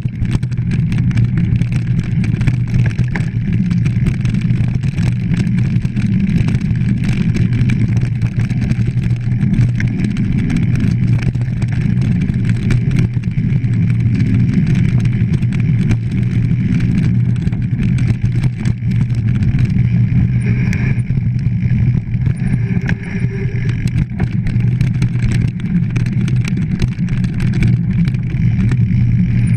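Mountain bike riding fast over a bumpy dirt singletrack, heard through an action camera's case: a steady low wind and rolling rumble with constant rattling and knocking from the bike over the ruts.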